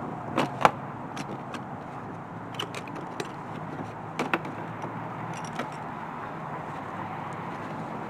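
Metal tie-down hardware clinking and knocking a handful of times, over the steady low hum of an idling vehicle.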